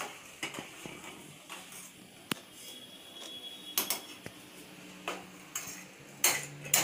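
Steel spoon clinking and scraping against a stainless-steel saucepan while milk tea is stirred on a gas stove: light, irregular taps, a sharper clink about two seconds in and a louder knock near the end.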